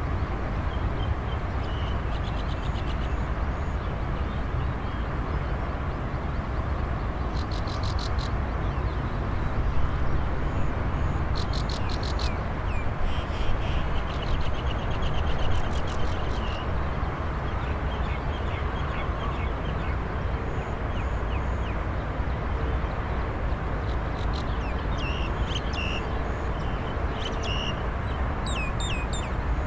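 Countryside dawn ambience: a steady low rumble underneath, with birds calling over it. Rapid rattling trills come around 8 s and again from about 12 to 16 s, and a run of short downward-sliding calls comes near the end.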